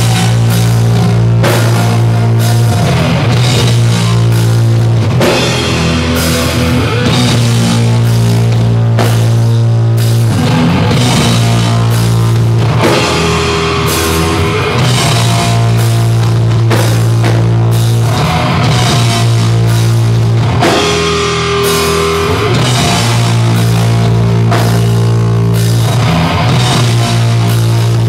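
Heavy metal band playing live: distorted electric guitars and bass holding long, low notes over drums, loud throughout.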